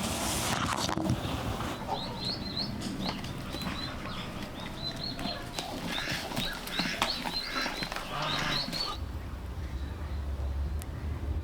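Small birds chirping, many short high notes in quick succession over a rustling background. About nine seconds in the chirping stops and a low steady hum takes over.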